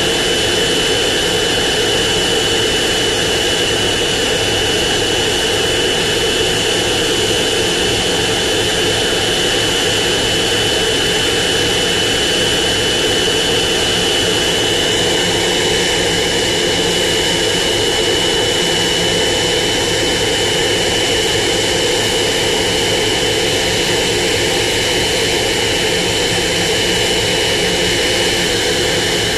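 Both turbofan engines of a Boeing 777-200ER running steadily on the ground during an engine run-up. The loud, even jet rush holds at a constant setting, with a steady high-pitched whine running through it.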